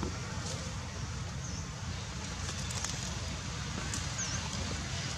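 Steady outdoor background noise, a low rumble under an even hiss, with two faint high chirps and a few light ticks.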